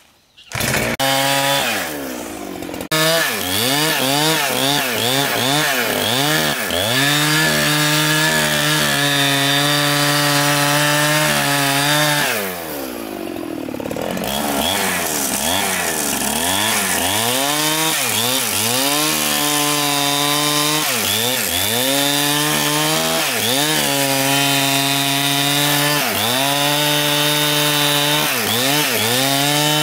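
Petrol-engined saw cutting wood. Its engine note dips under load and climbs back again and again, easing off briefly about halfway through.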